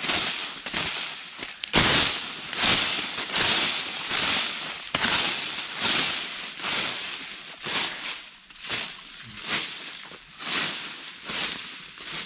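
Dry fallen leaves swept with a makeshift broom made from a branch, a crackling rustle with each stroke, about one sweep a second.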